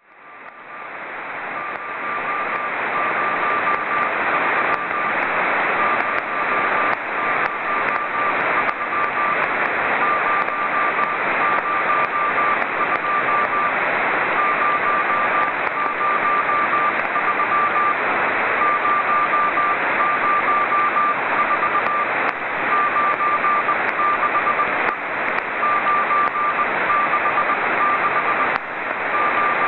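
Morse code (CW) beacon of the CO-66 (SEEDS II) amateur radio satellite received on a Yaesu FT-817 radio: a single beep tone keyed in dots and dashes, sent in groups with short gaps, over a loud bed of receiver hiss with scattered crackles. The hiss rises over the first couple of seconds.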